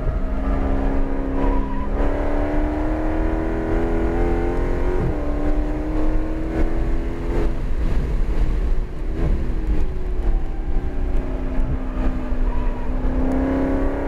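Dodge Charger Hellcat's supercharged 6.2-litre V8 heard from inside the cabin under hard acceleration, the engine note rising, dropping at an upshift about five seconds in, then rising again. From about seven seconds in it falls away as the car slows, and it climbs once more near the end as the car accelerates again.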